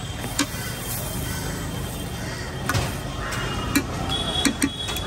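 A metal spatula clinking and scraping against a flat iron griddle as bread pudla is flipped and pressed, about five sharp clinks over a steady low hum of street noise.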